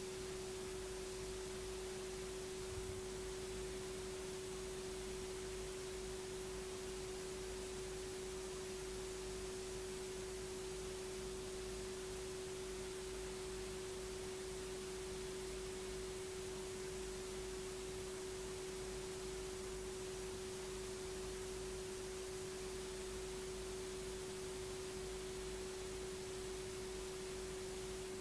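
A steady, unwavering electronic tone a little under 400 Hz, with a fainter tone near 200 Hz, over tape hiss and a low rumble from a VHS transfer.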